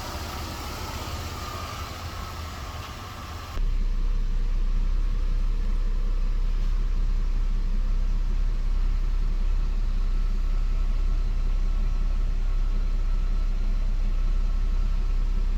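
2004 Buick's 3.8-litre V6 engine idling steadily, which the owner says no longer ticks after Marvel Mystery Oil was added. About three and a half seconds in, the sound changes abruptly to a louder, steady low rumble.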